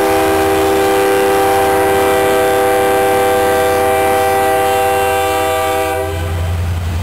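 Diesel locomotive air horn sounding one long chord of several notes, which cuts off about six seconds in, over the rumble of a passing freight train.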